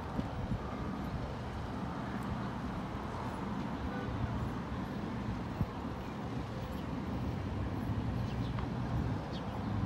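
UTA TRAX light rail train standing at the platform, giving a steady low hum and rumble, with city traffic noise around it. A few faint high chirps come near the end.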